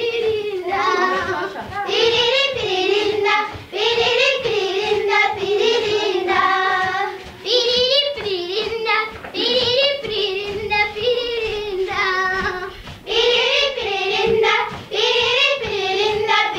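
A group of Maasai girls singing together, a chant-like song in short repeated phrases about every two seconds.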